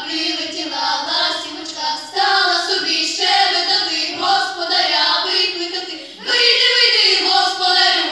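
A girls' vocal ensemble singing together, with a short break between phrases about six seconds in.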